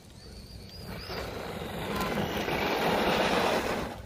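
Redcat Shredder RC monster truck running across a dirt infield on new budget tires: the noise of the tires on the dirt and the electric drivetrain grows louder as it comes close, is loudest about three seconds in, then falls away sharply near the end.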